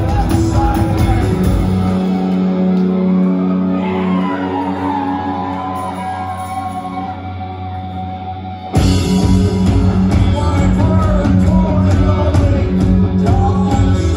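Rock band playing live in a club hall, with singing and electric guitars, heard from within the crowd. About two seconds in the drums and bass drop away and the music thins and fades. Just under nine seconds in the full band comes back in loudly.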